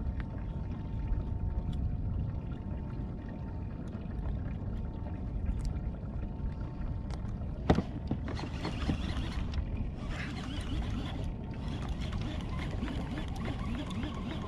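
Wind and water noise around a fishing kayak, with a sharp knock about three-quarters of the way in as the rod is swept up to set the hook on a biting fish. After it, the Sougayilang saltwater reel is cranked in stretches, heard as a whirring hiss.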